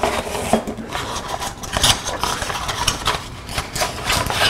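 Small cardboard box being opened and handled: irregular rubbing and scraping with light clicks, the sharpest about two seconds in and another near the end.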